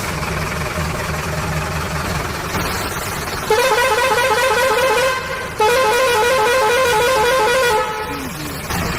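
Toy vehicle's electronic horn sound effect: two long warbling horn blasts a short gap apart, over a steady engine-running sound effect.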